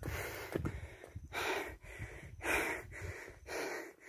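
A man breathing hard and heavily close to the microphone, one loud breath about every second, out of breath from walking uphill.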